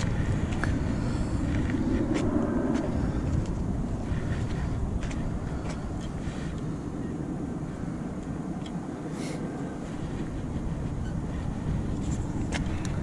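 Steady low rumbling outdoor noise with no clear pitch, with a few light clicks scattered through it.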